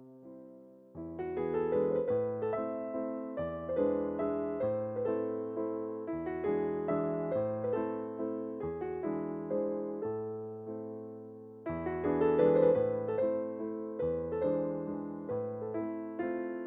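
Soft background piano music: chords and a melody, each note struck and fading. It grows fuller about a second in, thins out, and swells again near twelve seconds.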